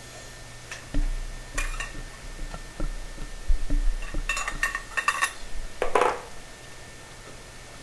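Small metal parts clinking and knocking as copper pipe fittings are handled, in a few quick clusters with a short ring to each clink, and one heavier knock and scrape about six seconds in.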